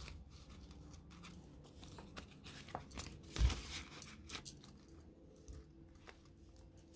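Plastic banknotes and clear plastic binder pockets crinkling and rustling faintly as they are handled, with small clicks as the pockets are turned on the binder rings. A thump about three and a half seconds in.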